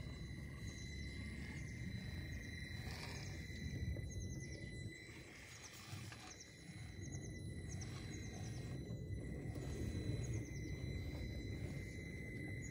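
A Traxxas TRX-4M RC crawler's small electric motor and gears whine steadily as it crawls through the creek bed and over a log, the whine fading and returning with the throttle. A bird calls several times in short, falling trills.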